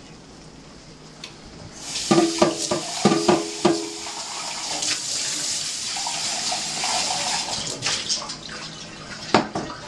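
Kitchen faucet turned on about two seconds in, water running into a stainless-steel sink as a glass measuring cup is rinsed under it. A few ringing clinks come early on as the cup is handled, with more knocks near the end.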